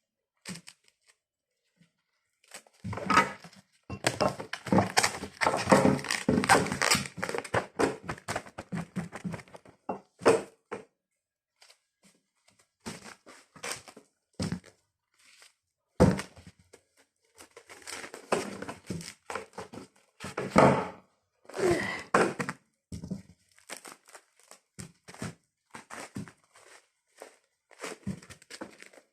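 Plastic bags crinkling and rustling in irregular bursts as they are handled and folded, with occasional knocks and thunks, a sharp one about sixteen seconds in.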